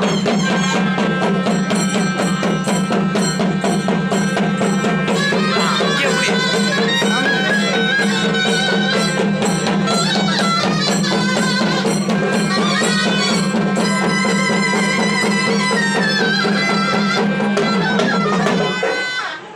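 Traditional Tamil festival folk music: fast, dense drumming on barrel drums under a loud, steady reedy drone and a wavering melody. It stops abruptly about a second before the end.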